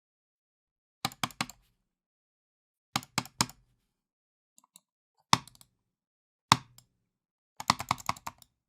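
Computer mouse clicked hard and angrily: quick bursts of three or four sharp clicks, then a couple of single heavy clicks, and a fast run of about seven clicks near the end, with silence between.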